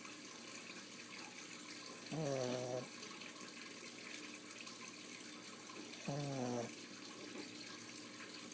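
A sleeping Maltese–Shih Tzu mix dog snoring: two snores, each under a second long and falling in pitch, about four seconds apart, over a steady faint hiss.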